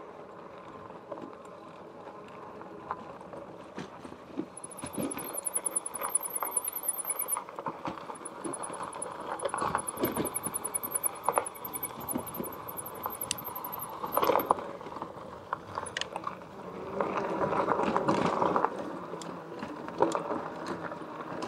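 Magicycle step-through cruiser e-bike, heavily loaded, riding uphill on a rough dirt and gravel trail. The tyres crunch over stones while the bike and its load rattle, giving many sharp clicks and knocks over a steady hum. The sound swells for a couple of seconds near the end.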